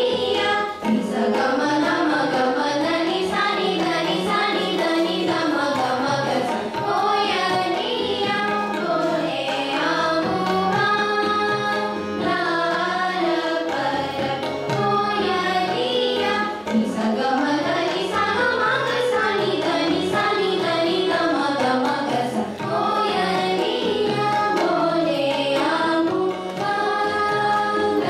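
A group of young girls sings Hindustani classical vocal in raga Malkauns together. The melody sweeps up and down in long glides, over tabla and harmonium accompaniment.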